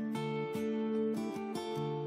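Background music led by a strummed acoustic guitar, with chords changing every half second or so.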